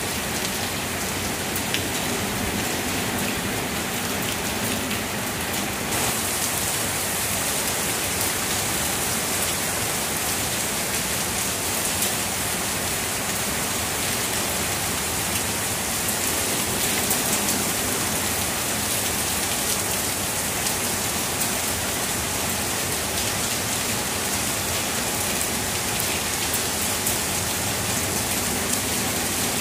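Heavy rain falling steadily through leafy trees, a dense even hiss dotted with small drop taps. About six seconds in the hiss turns brighter and sharper.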